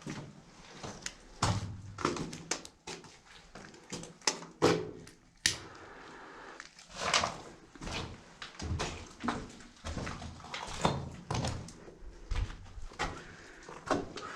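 Irregular footsteps, knocks and scuffs of people moving through an underground shelter tunnel, with the enclosed space adding a short echo.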